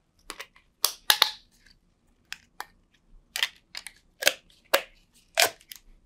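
Black corrugated plastic conduit and an Adaptaflex Adaptalok self-locking push-fit fitting being handled and clicked together: a scattered series of about a dozen short, sharp plastic clicks and rattles.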